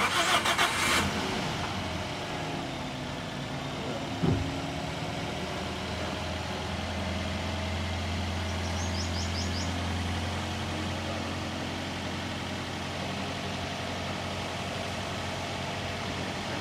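Freshly fitted replacement engine in a Toyota Corolla GLi, a four-cylinder petrol engine, running: a loud burst in the first second, then a steady idle hum. A single knock comes about four seconds in.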